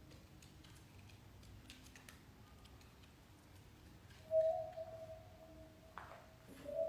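Soft, sparse background music: a long held note about four seconds in, and another starting near the end.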